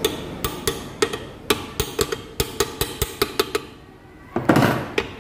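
Tools knocking on motorcycle engine parts during reassembly: a run of about fifteen sharp taps in quick, uneven succession, then a short, louder clatter near the end.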